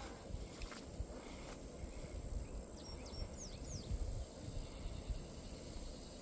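Outdoor insect chorus: a steady high-pitched buzzing that swells and fades in waves, over a low rumble. A few short rising chirps come about three to four seconds in.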